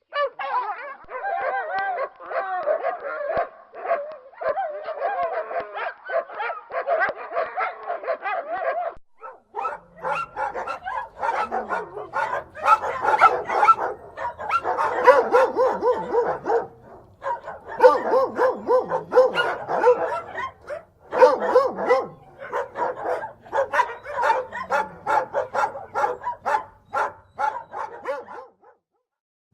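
Dogs barking loudly and repeatedly, quick pitched barks and yaps following one another. About nine seconds in, a different recording takes over, with a low steady hum beneath the barking.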